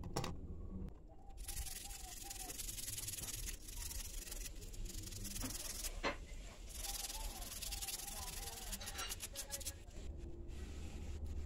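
Toothbrush bristles scrubbing a Bluetooth speaker's circuit board to clean it with isopropyl alcohol: a rough brushing hiss in several stretches with short pauses.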